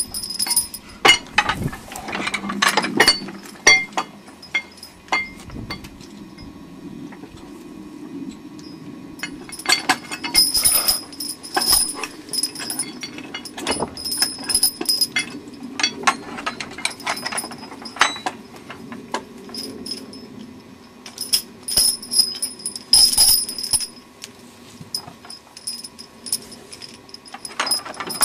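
Draft-horse harness chains and metal fittings clinking and jingling in irregular bursts as the team's traces are hooked to a wooden sled.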